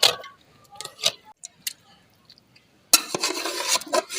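Metal utensil knocking against a cooking pot, a few light clinks, then about a second of stirring and scraping in the pot near the end.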